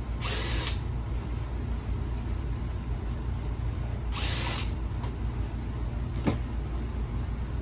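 Power screwdriver backing out small case screws from a car navigation unit: two short runs of about half a second, some four seconds apart, then a sharp click a little after six seconds.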